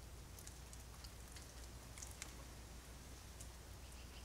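Faint scattered clicks and ticks, irregular and a few a second, over a low steady hum.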